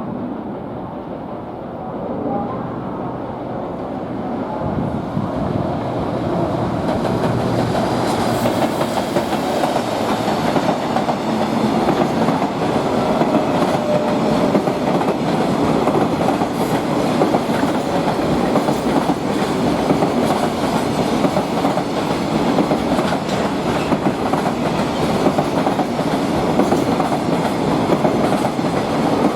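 Freight train passing at speed. The rumble of its wagons and wheels grows louder over the first several seconds, then holds steady, with a rapid run of wheel clicks on the rails.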